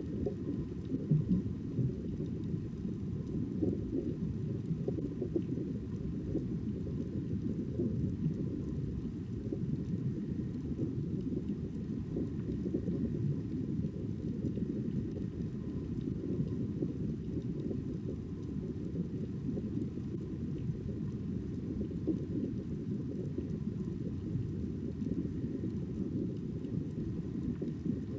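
Steady, muffled low rumble of underwater ambience, a dull wash with no distinct events.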